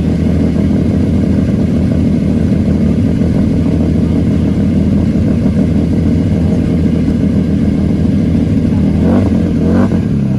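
1989 Lamborghini Countach's V12 engine idling steadily, with two quick throttle blips, each rising and falling in pitch, near the end.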